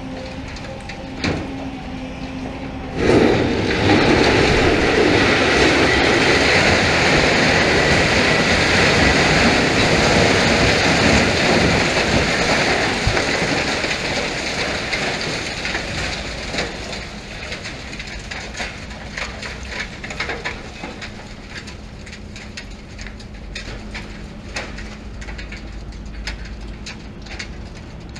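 Concrete and masonry of a building section crashing down under a high-reach demolition excavator. A sudden loud crash starts about three seconds in, goes on for about ten seconds, then dies away into scattered clatter of falling rubble. The Volvo EC750E HR excavator's diesel engine runs steadily underneath.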